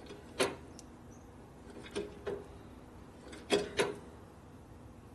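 Brake lever of a 1967 Harley-Davidson shovelhead being pumped during brake bleeding: five short sharp metallic clicks, one and then two pairs, as the lever is squeezed and released against a firming hydraulic brake.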